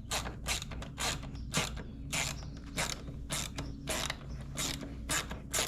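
Hand ratchet clicking in quick strokes, about two to three a second, as a motorcycle fairing bolt is turned out.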